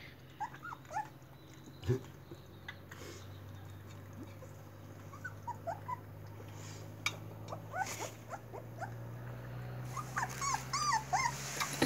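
Young puppy whimpering in short, high, squeaky cries, a few scattered at first and coming in a quick run near the end.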